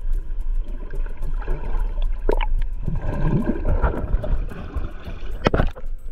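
Underwater recording of shallow water, heard as a heavy low rumble with bubbling as a submerged swimmer breathes out near the camera. A few sharp pops stand out, the loudest about five and a half seconds in.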